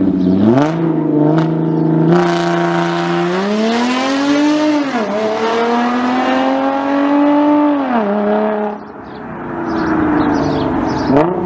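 Audi with an ARMYTRIX valved cat-back exhaust revving and holding revs at a standstill, then launching about two seconds in. It accelerates hard with rising pitch, shifting up about halfway through and again later, then fades as it pulls away.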